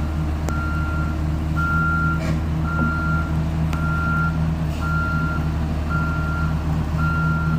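Excavator's backup alarm beeping steadily, about one beep a second, over the steady drone of its diesel engine as it moves.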